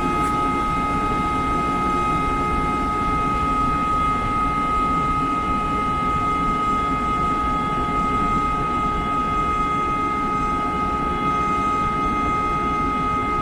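Ingersoll Rand rotary screw air compressor running steadily: a constant mechanical rush with a steady high-pitched whine over it.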